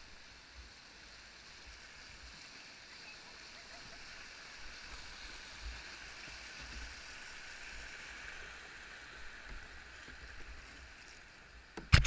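White water of a shallow river rapid rushing past a kayak, a steady hiss, with a sharp knock right at the end.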